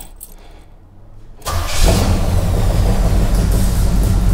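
Pontiac 350 V8 starts about a second and a half in and settles into a steady idle on fresh spark plugs. It runs smoothly on all eight cylinders, with the earlier misfire gone.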